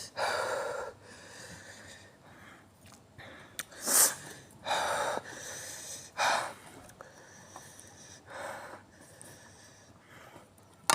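A person taking several sharp, hissing breaths through the mouth, reacting to the burn of spicy noodles.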